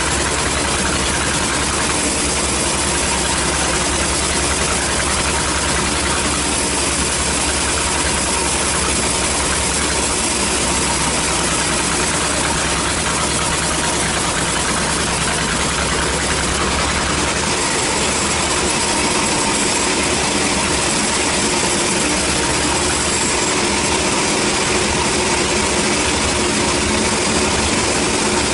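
Band sawmill running steadily, its motor and band blade sawing lengthwise through a log. The deep hum underneath lightens about two-thirds of the way in.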